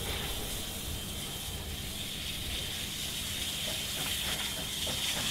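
NSWGR 59 class steam locomotive 5917 moving slowly, tender-first: a low rumble under a steady high-pitched hiss, with a few faint knocks near the end.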